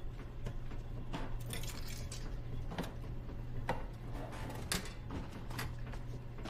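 Light clinks and knocks from handling at a top-loading washing machine as laundry is loaded into it, over a steady low electrical hum.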